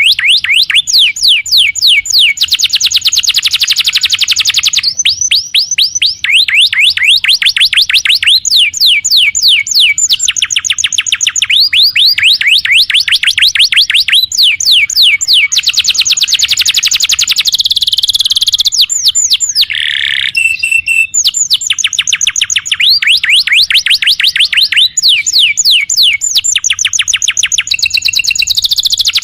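Domestic canary singing a loud, continuous song of fast trills: rapid runs of downward-sweeping notes, switching to a new trill every second or two, with a brief lower phrase about two-thirds of the way through.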